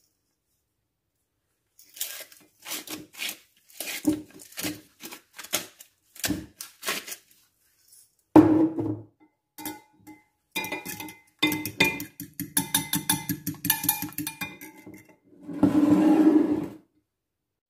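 A salt grinder turned over the egg gives a run of sharp clicks, followed by a single knock. Then a fork beats egg in a glass measuring jug, clinking rapidly and ringing against the glass for several seconds, and near the end the jug scrapes briefly on the worktop as it is moved.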